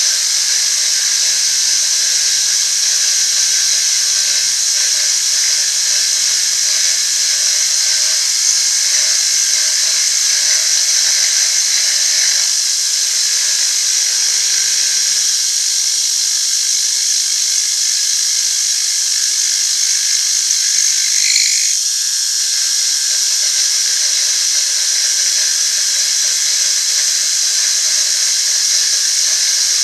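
Metal-working machine tool running steadily with a high-pitched whine while machining metal, with a short brighter squeal about 21 seconds in.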